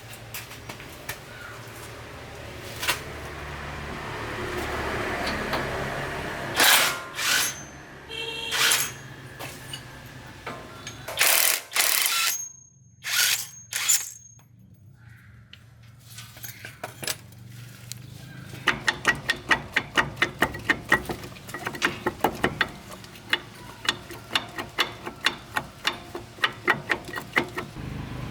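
Hand-tool work on truck metal: scattered knocks and clanks, then, about two-thirds of the way in, a fast, even run of clicks, about four or five a second, that keeps on.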